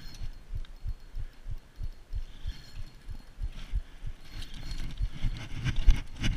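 A Daiwa Freams spinning reel being cranked against a big hooked fish, heard as low rhythmic thumps about two or three a second. Sharper clicks join in after about four seconds.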